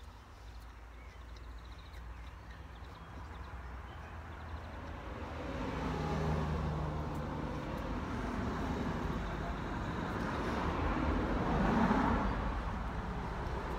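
A car passing on the road, its tyre and engine noise building from about five seconds in and loudest near the end.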